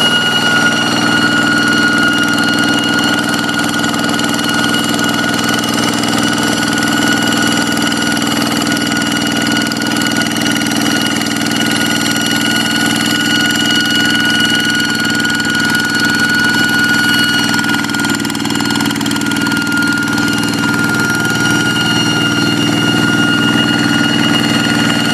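Kubota single-cylinder diesel engine of a hand tractor running steadily, with a steady high-pitched whine riding over the engine's chug.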